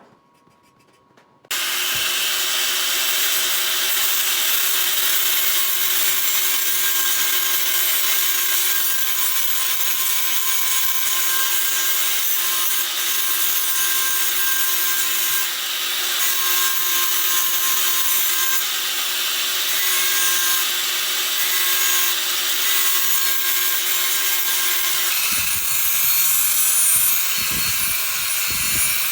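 A motor-driven machine starts abruptly and runs steadily with a whining hum over a dense hiss. About 25 s in its note shifts and irregular low thumps join.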